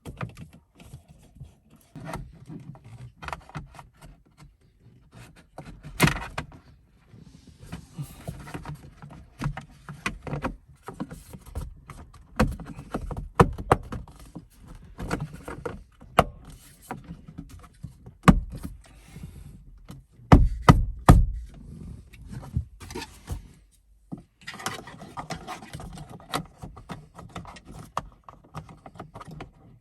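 Hands fitting a dashcam and its plastic housing at the windshield's rain-sensor mount: irregular clicks, taps and scrapes of plastic parts being handled and snapped into place, with a sharp knock about six seconds in and a quick cluster of knocks about twenty seconds in.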